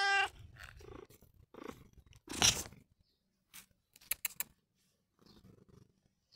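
A grey-and-white domestic cat's meow trailing off at the start, then a short loud scuffing noise about two and a half seconds in and a few light clicks. Faint purring begins near the end as the cat is stroked.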